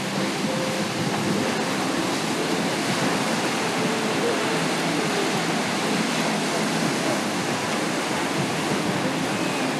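Ocean surf breaking and washing onto a sandy beach: a steady rush of waves, with faint voices of people in the water.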